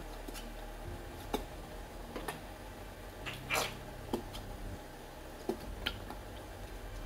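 Plastic ketchup squeeze bottle being squeezed over a foil pan: scattered light clicks and taps, with one short sputter about three and a half seconds in.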